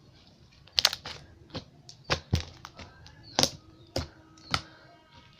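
Slime being squeezed and poked by hand, giving sharp, irregular crackling pops, about eight in a few seconds.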